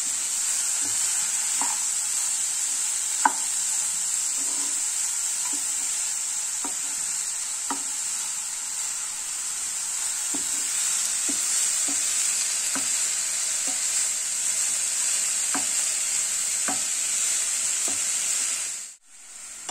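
Snake gourd, dried shrimp and coconut stir-fry sizzling steadily in a non-stick frying pan while a wooden spatula stirs and turns it, with scattered light knocks of the spatula against the pan. The sizzle drops out abruptly near the end.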